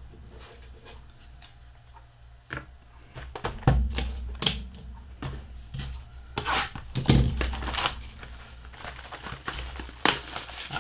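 A sealed trading-card box and its packs being opened by hand: plastic wrap crinkling and tearing, with scattered taps and knocks of cardboard. The loudest bursts of crinkling come about four, seven and ten seconds in.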